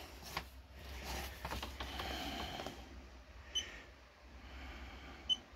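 Konnwei handheld battery tester giving two short high key beeps as its buttons are pressed, one about three and a half seconds in and one near the end. A faint rustle of the tester being handled comes before them, over a low steady hum.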